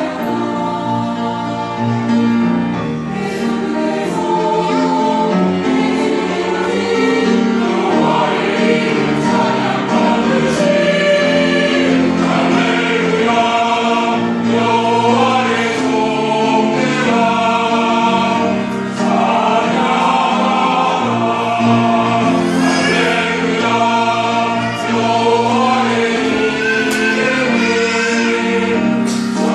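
Church choir singing a hallelujah praise hymn, voices in parts over a steady low backing.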